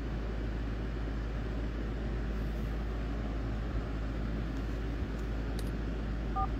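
Steady low hum with a hiss over it and no speech, with a brief two-note electronic blip near the end.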